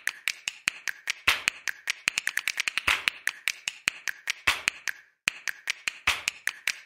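A fast, uneven run of sharp clicks or snaps, several a second, with a brief break about five seconds in.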